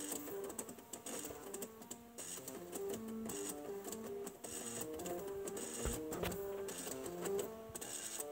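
Floppy drives playing a melody with their head stepper motors: a buzzy, rasping tone for each note, stepping from pitch to pitch.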